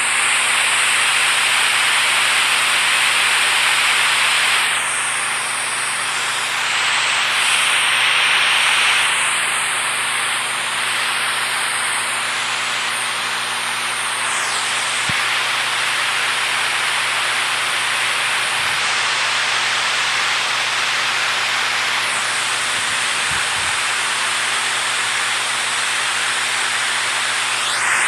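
Rushing water making a steady, even hiss.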